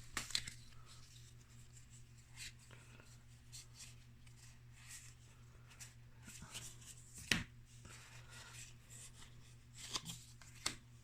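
Magic: The Gathering cards handled one by one, sliding and flicking against each other in faint rustles with small clicks; the sharpest snap comes about seven seconds in, and a few more come near the end. A steady low electrical hum runs underneath.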